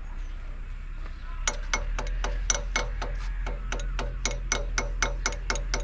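Old stationary engine, a local copy of a Ruston, clicking sharply and regularly from its mechanism at about four to five clicks a second, starting about a second and a half in, over a steady low hum.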